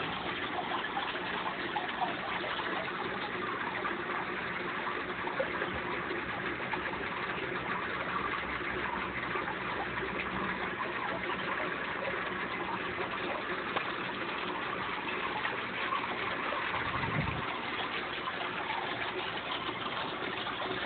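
Aquarium water running steadily, the filter outflow churning the tank's surface.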